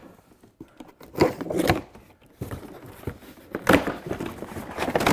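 A long cardboard shipping box being handled and opened: short bursts of cardboard rustling and scraping, about a second in and again near the end.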